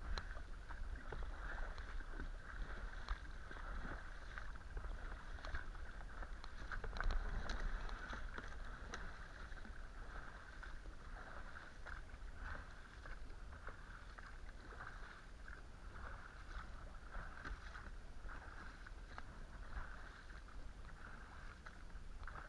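Inflatable boat being rowed: aluminium oars dipping and splashing through the water with small irregular knocks, over a steady wash of water along the hull and a low rumble.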